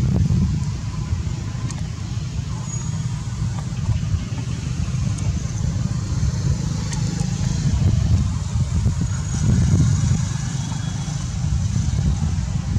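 Steady low rumble that wavers in strength, over a faint high hiss, with a few light ticks.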